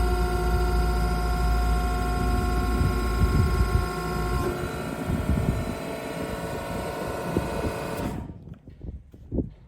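The hydraulic pump unit of a Joos HP 115 hydraulic shelf press running with a steady whine over a deep hum. The deep hum drops out about four seconds in, and the pump cuts off suddenly about eight seconds in, leaving a few faint knocks.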